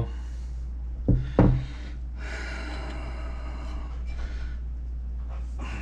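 Two sharp knocks about a third of a second apart as broken pressure-washer pump parts are handled on a workbench. They are followed by a few seconds of softer handling noise over a steady low hum.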